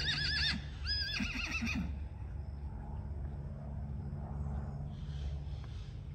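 A horse whinnying: a high, warbling call that breaks off and comes again, then drops into a few short, low pulses, ending about two seconds in. After that only a faint, low, steady background hum.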